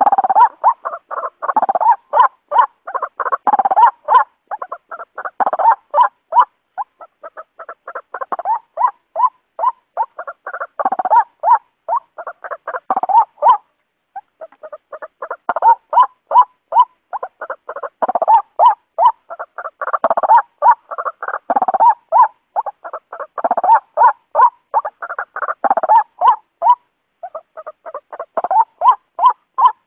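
Waterhen calling: a long run of loud, harsh repeated notes, about three a second, in bouts that break off briefly about halfway and again near the end.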